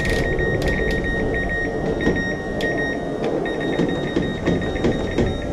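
Clicks from a Whirlpool Duet front-load washer's cycle selector knob and control-panel buttons as they are worked through the service diagnostic tests, a burst of them at the start and scattered ones after. Under them run a steady high tone, which fades out about three seconds in, and a steady low hum.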